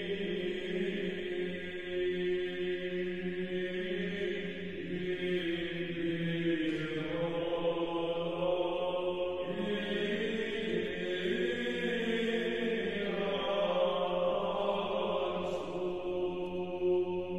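Background music in a slow chant style: long held vocal-like tones over a steady low drone, the notes shifting slowly every few seconds.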